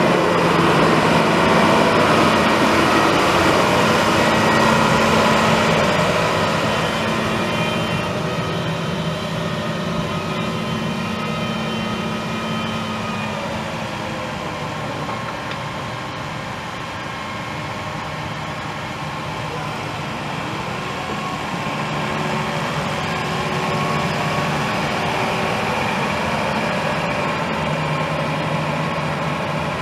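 Case IH Magnum 220 tractor's 6.7-litre six-cylinder turbo diesel engine running. It is louder for the first few seconds, eases off through the middle and comes up again near the end.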